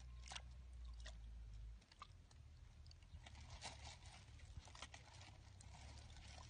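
Faint wet squelches and small clicks of a hand groping through shallow muddy water and soft mud.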